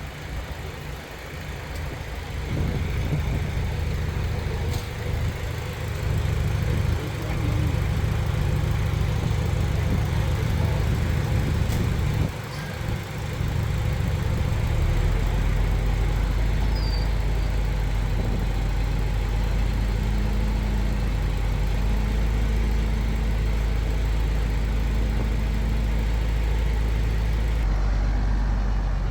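Heavy diesel engines of earthmoving machinery running steadily, growing louder about two seconds in, with a deeper steady drone joining about halfway through.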